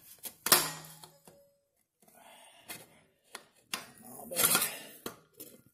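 Metal exhaust pipes knocking and scraping against each other as a slip-on pipe is forced by hand onto the connecting pipe. There is a sharp clack about half a second in and a longer scraping rasp around four and a half seconds.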